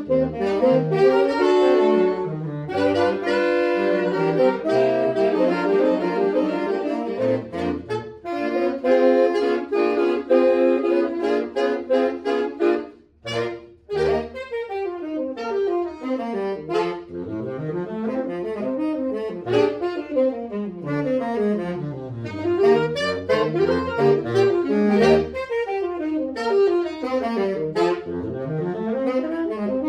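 Saxophone quartet playing. Sustained chords give way, after a brief break about thirteen seconds in, to faster rising and falling runs that cross between the parts.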